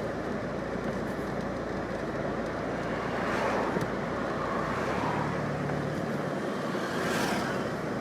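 Road traffic noise, a steady hum of cars, with vehicles swelling past twice, about halfway through and near the end.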